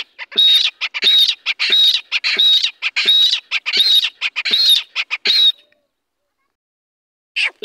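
Young grey francolin (teetar) chicks calling: a quick run of short, sharp high squawks, about one and a half a second, then a pause of a couple of seconds before the calls start again near the end.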